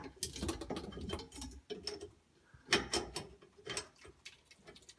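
Scattered small clicks and metallic knocks of plumbing fittings and a wrench being handled, in uneven bunches with short gaps.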